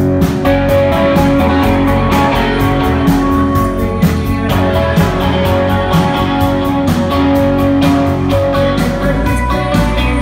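Rock music led by guitars, with sustained notes over a steady beat of about four ticks a second.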